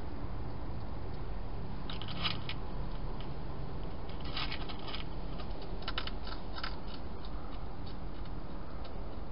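Wild hedgehog chewing food, with short runs of crisp crunching about two, four and six seconds in, over a steady hiss.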